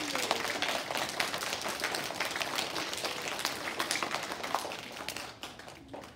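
An audience of schoolchildren clapping, a dense patter of many hands that thins out and dies away near the end.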